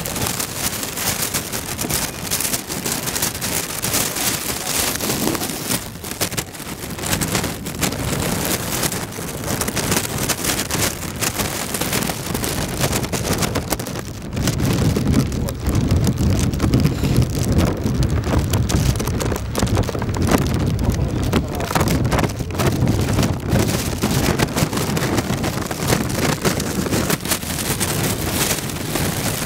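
Wind buffeting the microphone outdoors, a continuous rushing noise that turns heavier and deeper about halfway through.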